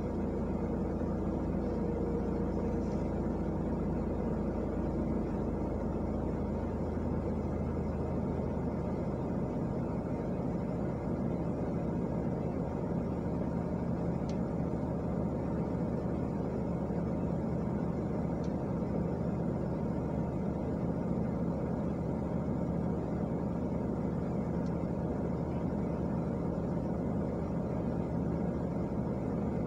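Car engine idling with a steady low hum, heard from inside the cabin while the car stands still.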